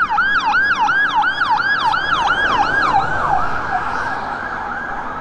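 Ambulance siren in its fast yelp mode: a loud, quickly repeating sweep of about four falling glides a second, fading out about three seconds in.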